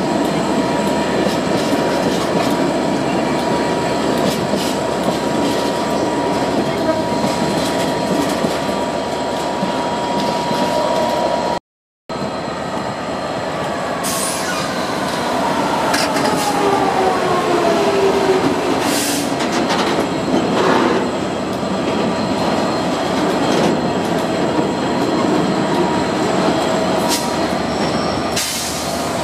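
Freight trains passing close by. First, loaded tank wagons rumble past with a steady high wheel squeal. After a break about 12 s in, a Class 66 diesel locomotive with a two-stroke V12 comes through, its engine note falling in pitch as it passes, and is followed by box wagons clattering and squealing over the rails.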